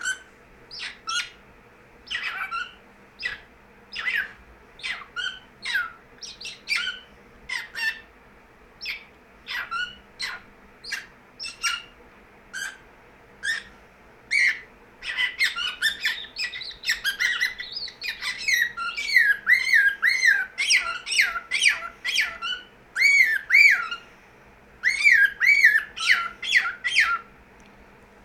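Pet bird making short squawks and chirps, spaced a second or so apart at first, then a fast string of warbling chirps from about halfway, with a brief pause a few seconds before the end.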